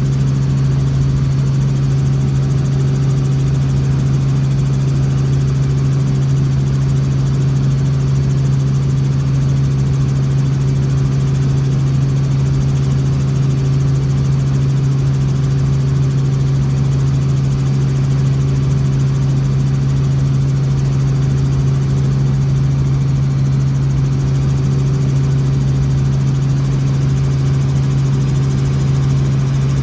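Helicopter engine and rotor noise heard inside the cabin: a loud, steady, low drone that does not change.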